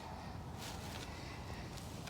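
A few soft rustling swishes of someone moving through dry brush and grass, over a low steady background.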